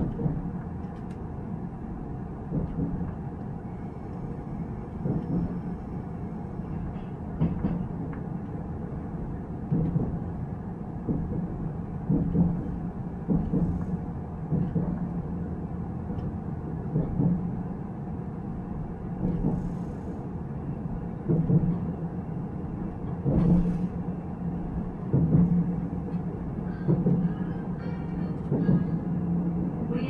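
Inside a Nuriro passenger train running along the track: a steady low rumble that swells louder every second or two.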